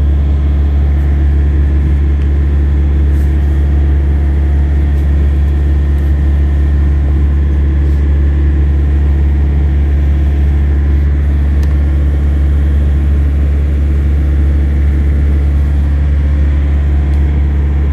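A large engine idling steadily: a loud, even, deep hum with steady overtones, with a few faint clicks over it.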